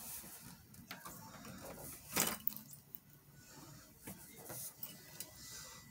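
Light clicks and rubbing of small objects being handled close by, with one louder knock about two seconds in.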